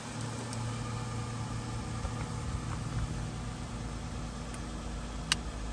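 A steady low mechanical hum, with one sharp click about five seconds in.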